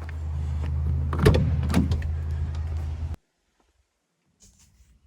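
A steady low hum with two knocks about a second in, cut off abruptly about three seconds in; after a second of silence come faint clicks and rustling.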